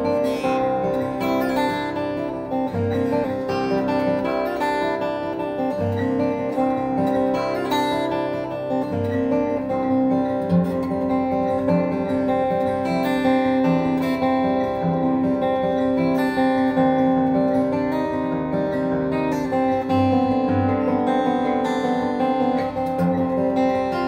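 1994 Taylor 420-R steel-string acoustic guitar played solo: plucked notes ringing over one another above a recurring low bass note.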